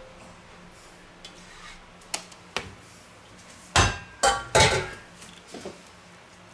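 Stainless steel mixing bowl clanking: two light taps about two seconds in, then three loud knocks close together a little later that ring on briefly.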